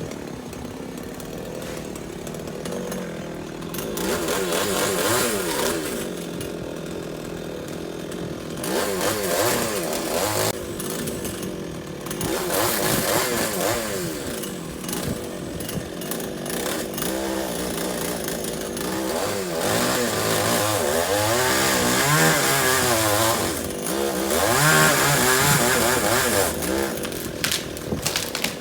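Chainsaw running and cutting wood, its engine pitch rising and falling again and again as it is revved, with louder stretches while the chain bites under load.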